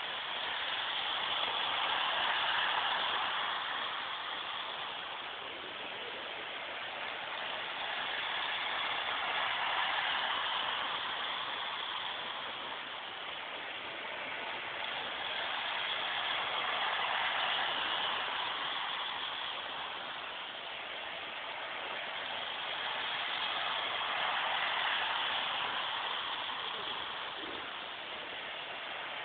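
Model electric train running around an oval track, its wheels and motor making a steady rushing rattle that swells and fades about every seven or eight seconds as it circles past.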